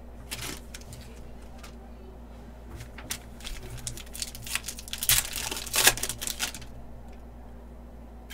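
Foil wrapper of a trading-card pack crinkling and tearing as it is ripped open by hand, with the loudest rustling about five to six and a half seconds in.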